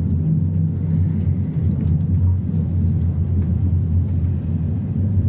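Steady low rolling rumble inside an ICE 1 high-speed train coach as it runs along the track, with wheels and bogies droning evenly.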